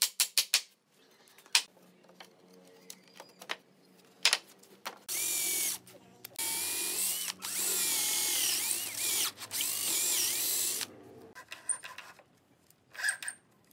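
Cordless drill boring into a wooden workbench leg: a short burst about five seconds in, then a run of about four and a half seconds, the motor's pitch dipping and recovering as it cuts. Light knocks come before and after the drilling.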